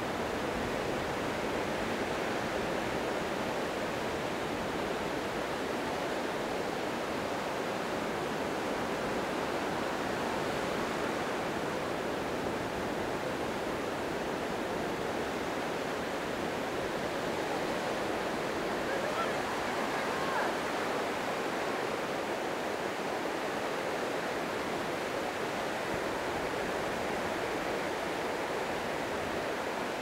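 Wind-driven surf breaking and washing up on a sandy beach shore, a steady, even rush of waves.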